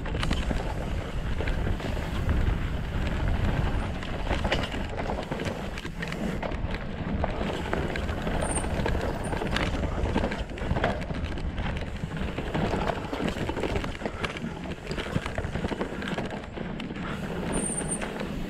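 Mountain bike ridden fast down a dirt forest trail: tyres rolling over the ground and the bike rattling over bumps in many small knocks, with a steady rumble of wind on the microphone.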